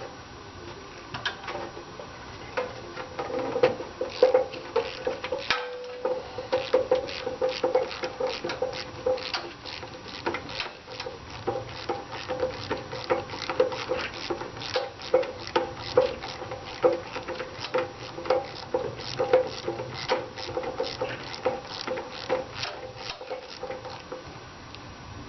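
Hand ratchet wrench clicking in quick runs of several clicks a second as a nut is turned.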